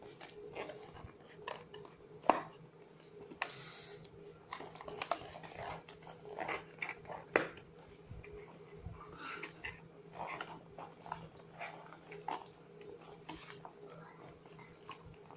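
Plastic packaging of a pack of Nerf foam darts being handled and pried open: scattered clicks and crinkles, with a brief scratchy rustle about three and a half seconds in.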